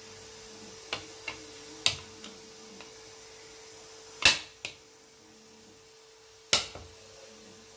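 Stainless-steel puttu maker cup knocking and clinking against a ceramic plate as it is handled and turned upside down to unmould steamed ragi puttu. A few light taps come first, then two loud knocks with short ringing tails, about four and six and a half seconds in.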